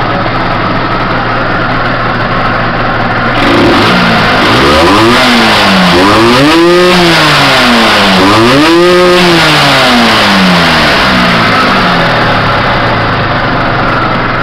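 Yamaha TZR 125's two-stroke single-cylinder engine idling, then revved twice about two and a half seconds apart, its pitch rising and falling each time before it settles back toward idle. The owner says the engine needs a top-end rebuild.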